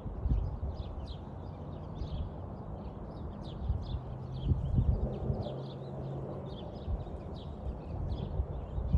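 Gusty wind buffeting the microphone in uneven low rumbling surges, strongest just after the start and around the middle. Small birds chirp steadily over it, about three short chirps a second.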